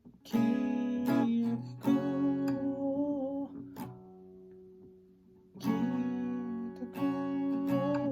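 Acoustic guitar playing strummed chords that ring out. Around the middle the strumming stops and a chord dies away, then the strumming starts again.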